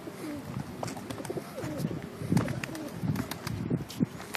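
Several Turkish tumbler pigeons cooing, repeated low bending calls, with scattered sharp clicks and taps among them.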